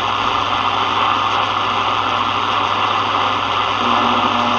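Steady hiss of shortwave static from the speaker of a Sony ICF-7601 portable radio tuned between stations, with a constant low hum; a short low tone comes in near the end.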